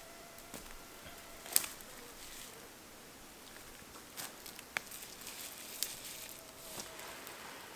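Faint, irregular crunching and rustling of footsteps and handling on dry ground and vegetation, with a few sharper clicks; the sharpest comes about a second and a half in.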